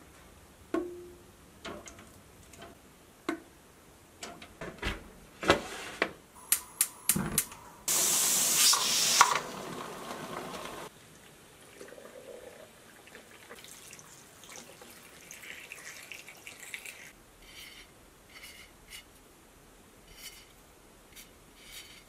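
Glass canning jars knocking and clinking as they are handled and set down, then hot water poured from a kettle into jars of cut potatoes, a loud rush for about three seconds that stops suddenly. Faint scratching of a marker writing on the metal jar lids follows.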